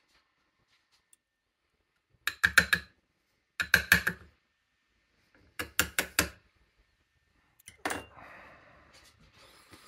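Small metal tools clicking against the plug and key of an ASSA Guideline lock as it is taken apart, in three quick bursts of sharp clicks. Near the end comes a single knock, then a soft scraping rustle.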